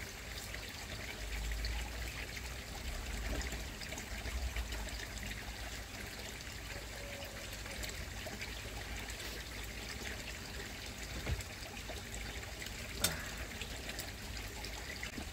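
Steady trickle of water running in a koi pond, with one sharp click near the end.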